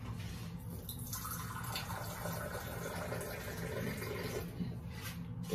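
Water being poured into a cup, a steady filling sound that starts about a second in and stops near the end.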